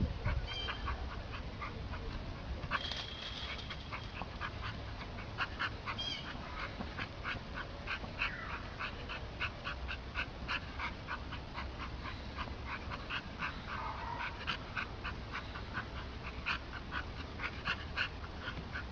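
A dog making short, repeated sounds, a few each second.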